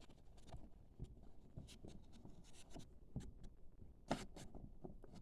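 Faint small clicks and rustles over quiet room tone, with one louder click about four seconds in.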